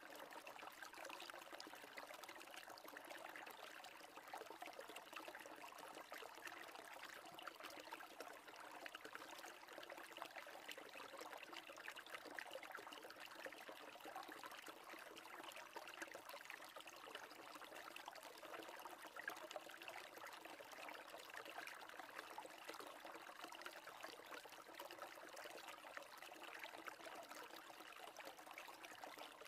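Near silence: a faint, steady hiss like trickling water, unchanged throughout.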